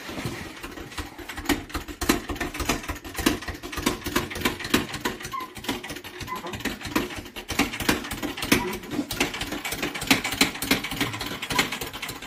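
Hand-pumped hydraulic motorcycle/ATV scissor lift being jacked up under load: a rapid, uneven run of clicks and clunks from the pump strokes and the lift's moving parts.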